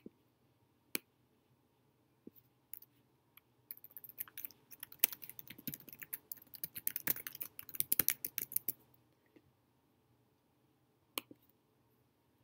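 Typing on a computer keyboard: a run of quick key clicks lasting about five seconds. There is a single sharp click about a second in and another near the end.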